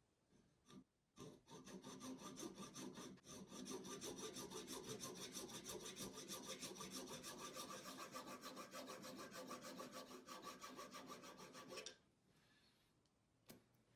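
Fine-toothed hand saw blade sawing back and forth through a black plastic threaded collar held in a vise, in fast, even strokes. It starts about a second in and stops near the end, as a thin ring of the plastic comes free.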